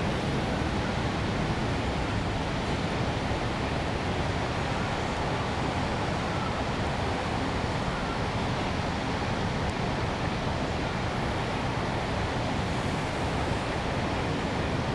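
Steady urban ambience: an even, dense hum of distant traffic and city noise, strongest in the low end, with no distinct events standing out.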